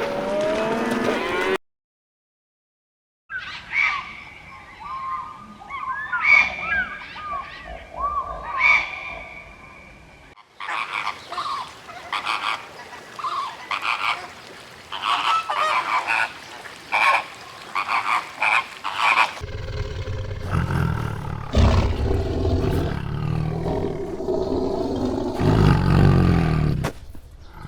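A run of animal calls in several short stretches, with abrupt changes between them and a brief silence about two seconds in. The first stretch has short calls that rise and fall in pitch, the middle one has many quick calls close together, and the last is lower and fuller.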